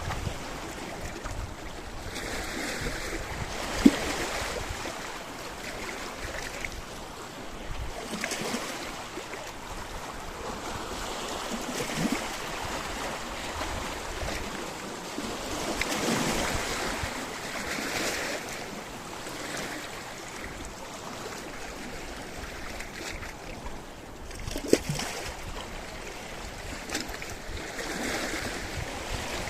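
Sea waves washing onto a rocky shore: a steady wash of surf that swells and fades every few seconds. Two sudden sharp sounds stand out, one about four seconds in and one near the end.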